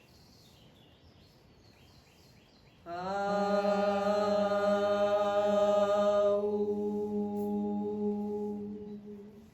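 A single voice chanting the Qi Gong healing sound "AU" as one long note on a steady pitch. It starts about three seconds in and is held for about six seconds. Its bright open "A" closes toward a darker "U" partway through, and it fades out near the end.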